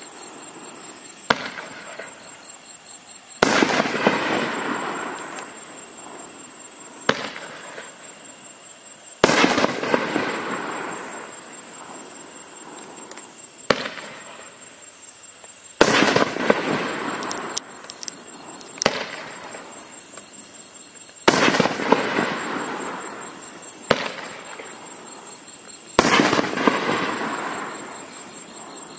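A 9-shot, 2.5-inch consumer firework cake (Neon Rings) firing single shells. Each shell gives a sharp pop as it lifts from its tube, then about two seconds later a loud aerial break that echoes and fades over a few seconds. Five launch-and-break pairs come several seconds apart.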